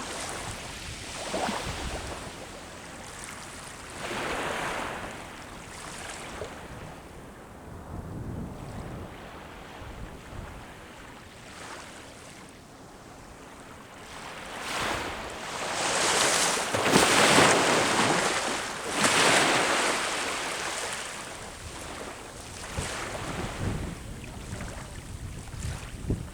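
Sea waves breaking and washing up the shore in repeated swells, the biggest and loudest about two-thirds of the way through, with wind buffeting the microphone.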